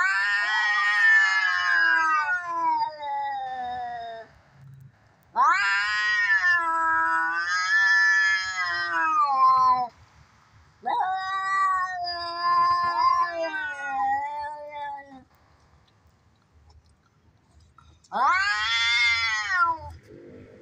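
Domestic cats yowling in a fight: four long, wavering caterwauls of a few seconds each, rising and falling in pitch, with short silences between them.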